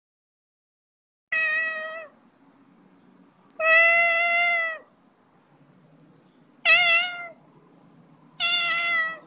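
Domestic cat meowing four times: long, even-pitched meows a second or two apart, the third one shorter and wavering. A faint low background noise runs between the meows.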